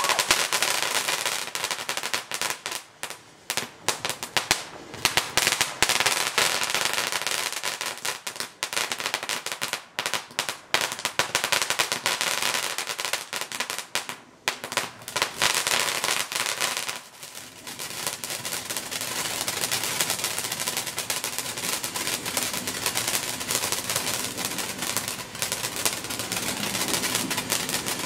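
Black Cat Bellagio Fountain, a ground firework fountain, spraying sparks with a steady hiss and dense, rapid crackling. The crackle dips briefly a few times, then settles into a more even spray for the second half.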